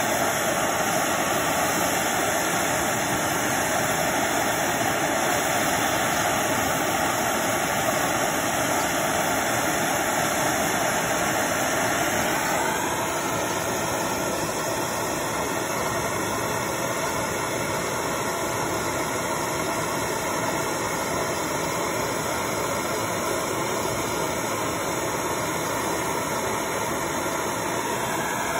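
MAP gas torch burning with a steady hiss. About twelve seconds in, the sound changes and drops a little as the hot O-1 steel blade is plunged into the smoking quench oil.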